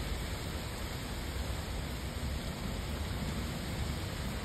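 Steady rain: an even, unbroken hiss with no separate drops standing out.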